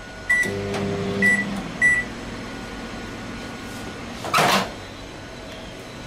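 Microwave oven control panel beeping three times, short high beeps about a second apart, over a brief low hum. About four seconds in, a short clunk as the microwave door is opened.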